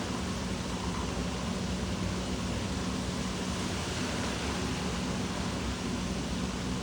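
Water park ambience: a steady, even rush of running water with a low, constant hum underneath.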